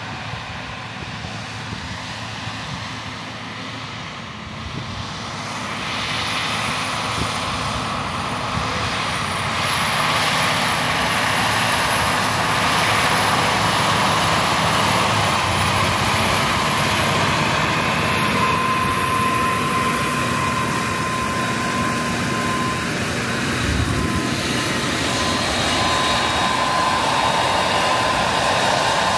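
Versatile DT620 track tractor's diesel engine running steadily under load as it pulls the planter, getting louder about five seconds in, with a thin high whine over the engine noise.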